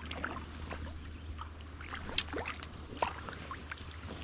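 Water trickling and lapping, heard as an irregular patter of small ticks and drips with a sharper click about two seconds in, over a faint steady low hum.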